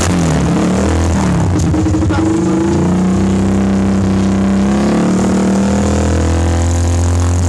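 Honda TMX 155's single-cylinder four-stroke engine running through an open Thai-style conical exhaust, loud. It is revved up and down for the first couple of seconds, then held at steady raised revs.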